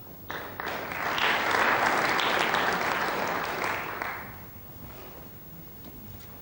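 Snooker audience applauding. The clapping starts suddenly, swells for a couple of seconds and dies away after about four seconds.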